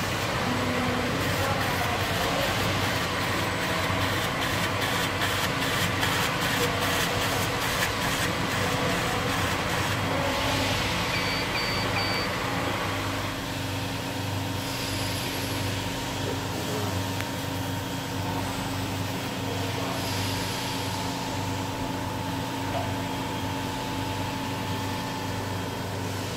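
CO2 laser cutter running with a steady machine hum. Rapid ticking for about the first nine seconds while the head perforates the leather, then three short high beeps about eleven seconds in, after which the machine sound is lower in hiss.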